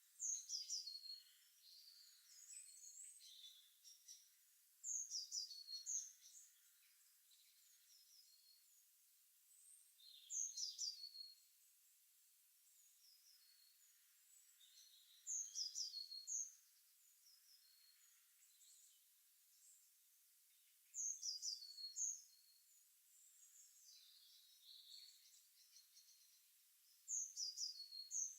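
A songbird repeating a short, high song phrase of quick notes falling in pitch, about every five to six seconds, with softer chirping between phrases.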